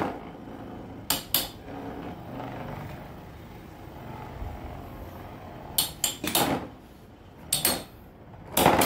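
Two Infinity Nado spinning tops battling in an arena: a faint whirr of spinning, broken by sharp clacks in small groups as the tops collide, the loudest near the end.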